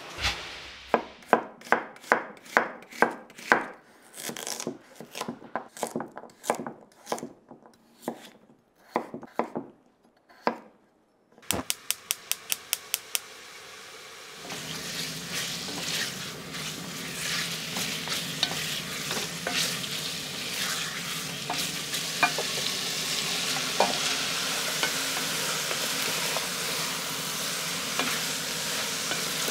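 Sharp chopping strokes, about two a second, then scattered knocks and a quick run of clicks, then food frying in a pan: a steady sizzling hiss with small pops for the second half.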